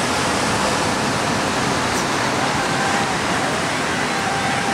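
Steady rush of ocean surf and water splashing as a crowd runs through the shallows, with faint voices calling in the background.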